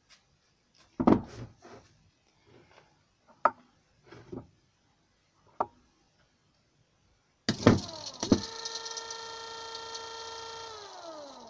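Knocks and clicks as wires are handled. About halfway in, a small brushed DC scooter motor starts with a sharp click as its lead touches the battery and runs with a steady whine. Near the end the whine falls in pitch as the motor winds down with the power cut.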